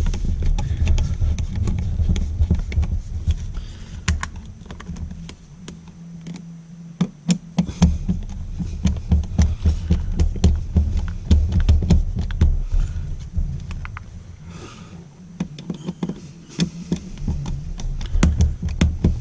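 Hand screwdriver turning the mounting screws of a duplex outlet into a box extender: irregular small clicks and scrapes of the blade in the screw heads, over a low rumbling handling noise.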